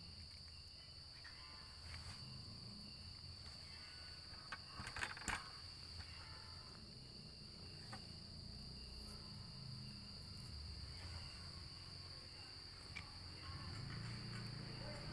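Steady high-pitched chirring of crickets, with a short cluster of sharp clicks about five seconds in.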